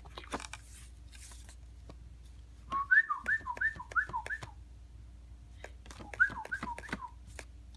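A person whistling bird-like chirps as the crossbill's call: a quick run of about five short chirps that swoop down in pitch, then after a pause a second run of four. Light paper clicks and rustles from handling a pop-up book come and go.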